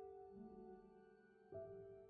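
Quiet, slow instrumental music of soft held notes that fade away slowly. A lower note enters about a third of a second in, and another chord follows about a second and a half in.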